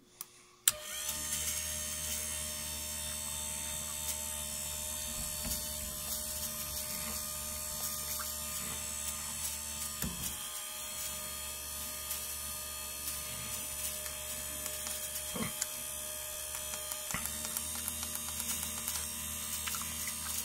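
A click, then a windshield wiper motor starts suddenly about half a second in and runs with a steady electric hum, turning a mini lathe's leadscrew at full speed under a remote-controlled speed controller. A few faint ticks sound over the hum.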